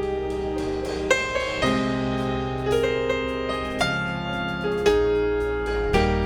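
Slow instrumental worship music: piano-like keyboard chords, each struck and held about a second before the next, over a sustained bass.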